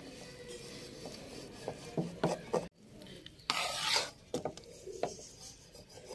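A serving spoon stirring and scraping cooked biryani rice in a large metal pot, mixing the coloured layers, with a few light clinks of the spoon against the pot. The loudest scrape comes about three and a half seconds in.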